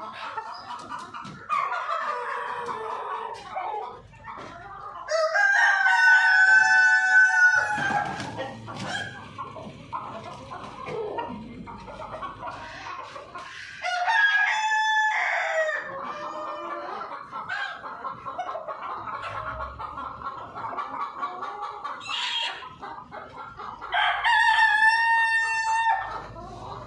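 Australorp rooster crowing three times, about ten seconds apart, over steady clucking and chatter from a flock of chickens.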